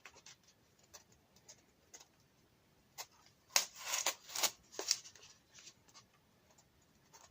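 Packaging being handled while a phone is unboxed: a few faint short rustles and clicks, with a brief cluster of them in the middle.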